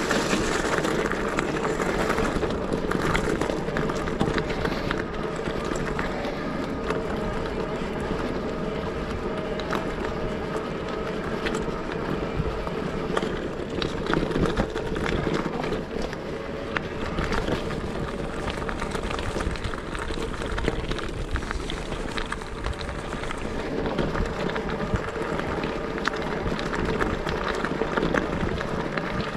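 Steady rushing wind and road noise of a moving bike ride, with a steady hum and frequent small rattles and clicks.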